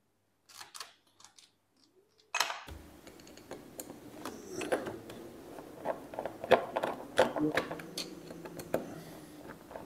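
Scattered small clicks, taps and scrapes of a screwdriver working on a brass pipe fitting, with a faint steady background hum from about three seconds in.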